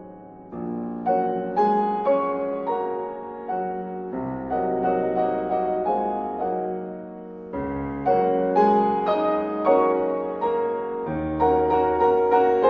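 Background piano music: gentle chords and notes struck one after another, each ringing and fading.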